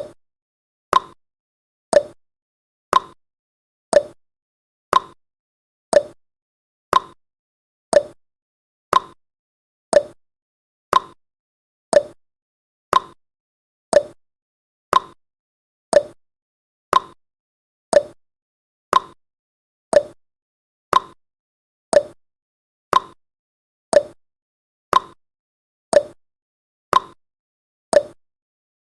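Countdown timer's ticking sound effect: one short, sharp tick every second, steady and even, with silence between ticks.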